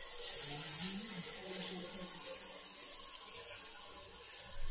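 Lump of raw-banana kofta batter sizzling in hot oil in a kadai: a steady frying hiss with light crackles, starting as the batter drops into the oil.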